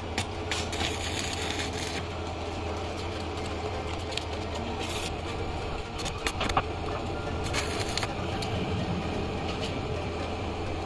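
Stick-electrode arc welding with an inverter arc welder: the arc crackles and sizzles in short spells, about a second in, near the middle and again about eight seconds in, with sharp clicks in between, over a steady low hum.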